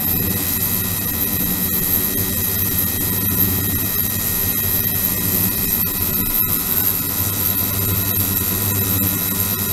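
Immersible ultrasonic transducer running in a resin tank: a steady hum and hiss with several constant high tones.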